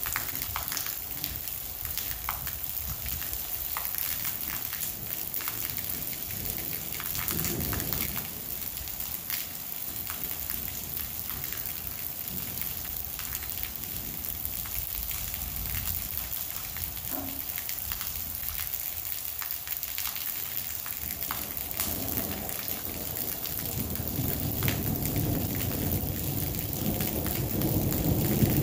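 Heavy rain falling steadily, with many single drops ticking sharply close to the microphone. A low rumble of thunder swells briefly about a quarter of the way in and builds again over the last third, growing louder toward the end.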